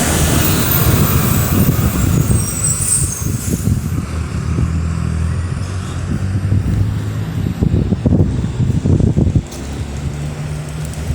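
Electric fan, a Ventisol Falcon wall fan adapted onto a Britânia BVC680PM, running with a steady low motor hum. Its airflow buffets the microphone with gusty wind noise.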